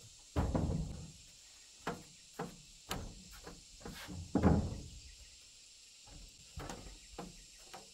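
Lumber boards knocking and clattering as they are handled at a stack and set down on a wooden plank floor: a string of hollow wooden knocks, the loudest about four and a half seconds in. A couple of lighter knocks near the end, as of footsteps on the planks.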